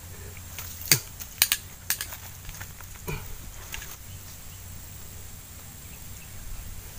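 A few sharp clicks and taps between about one and two seconds in, as fishing tackle and a freshly caught fish are handled, then a short low falling sound around three seconds in.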